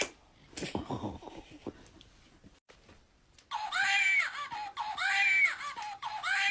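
Three long, high-pitched wailing cries in a row in the second half, each rising and then falling in pitch, after a quieter start.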